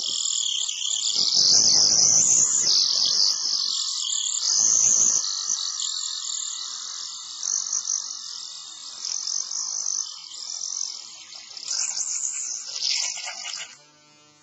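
Small high-speed rotary cutting tool whining as its blade cuts along the seam of a plastic laptop battery pack, the pitch wavering as the blade bites into the plastic, with a couple of brief rougher grinding moments. The whine dies away near the end.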